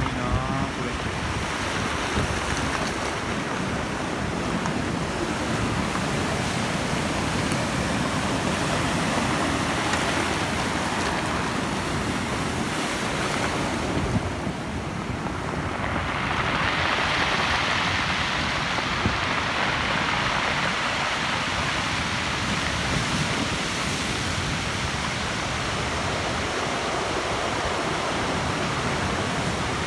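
Heavy storm surf whipped up by a typhoon: waves breaking and washing in without a pause, with wind on the microphone. About halfway the wash eases for a moment, then a big wave breaks and the hiss of surf swells again.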